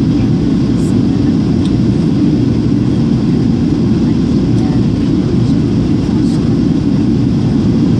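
Steady cabin roar of a Boeing 737 airliner on its landing approach, engine and airflow noise heard from inside the cabin, even and unchanging, with most of its weight in a low rumble.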